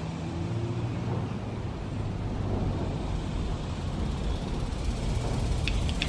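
Steady low outdoor rumble, with a run of short, sharp high ticks starting near the end.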